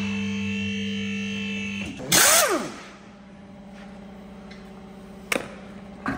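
Electric pump motor of a two-post car hoist humming steadily as it lifts the car, stopping about two seconds in. A short loud whirr follows, falling quickly in pitch as an air tool spins down, then a faint hum and two sharp clicks near the end.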